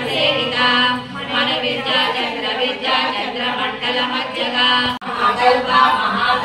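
Voices singing a Hindu devotional chant, with a brief break in the sound about five seconds in.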